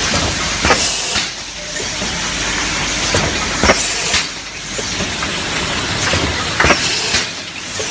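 A 10-lane cup water filling machine running through its cycle: a steady hiss with a pair of sharp clacks about every three seconds as it indexes.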